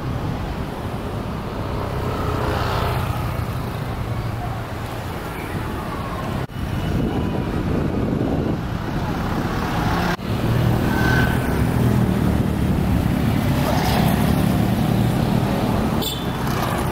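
Road traffic passing close by, cars and a motorbike, with a steady engine and tyre noise. The sound breaks off sharply twice, about six and a half and ten seconds in.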